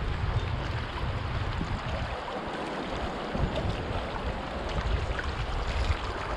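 Steady rush of flowing river water, with wind rumbling on the microphone that dies down for about a second midway.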